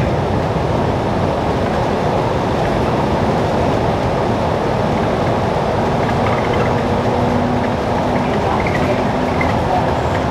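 Steady cabin noise inside a New Flyer Xcelsior XDE60 articulated diesel-electric hybrid bus: a continuous rumble of drivetrain and road noise. A faint steady hum joins about six seconds in.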